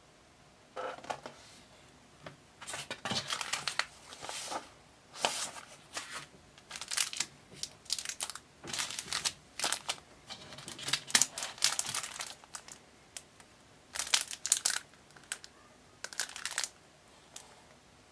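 Clear plastic packaging crinkling in irregular bursts as a paper-craft kit's wrapping and bagged parts are unwrapped and handled.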